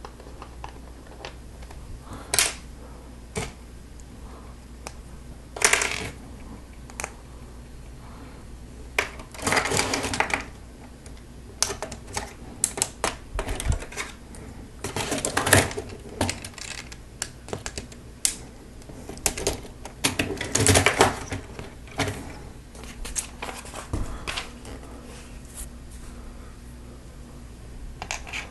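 Plastic Lego Technic pieces clicking and rattling as they are handled and snapped together: scattered sharp clicks, with a few longer bursts of rattling parts.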